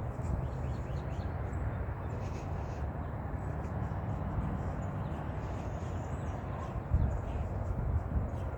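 Faint bird calls over a steady low outdoor rumble, with a single thump about seven seconds in.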